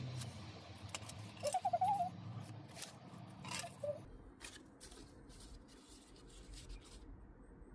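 Scissors snipping and small craft items being handled: scattered short clicks and snips, busier in the first half and fainter later. A brief wavering hum from a woman's voice comes about a second and a half in.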